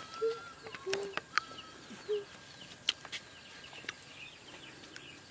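Chickens clucking: a few short, low clucks in the first two seconds. Small birds chirp faintly throughout, with a few sharp clicks.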